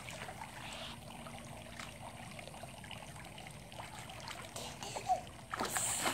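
Pool water lapping and trickling around a baby swimming and floating, with one louder splash from its kicking legs near the end.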